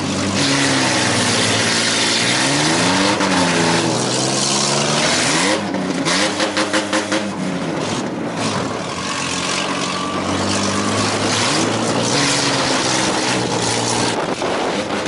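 Several small demolition-derby cars' engines revving up and down, the pitch rising and falling again and again as they push through the mud, with a short rapid stutter of the revs about six seconds in.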